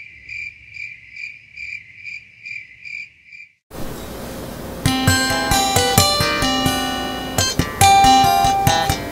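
A high, even chirping repeats about two and a half times a second, then stops. About five seconds in, an unplugged Alto Chapman Stick, miked at the fretboard with no pickups, begins playing: two-handed tapped notes that ring on over one another.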